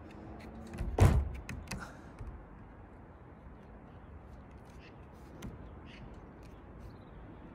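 A single heavy thump on the van's body about a second in, followed by a few light knocks.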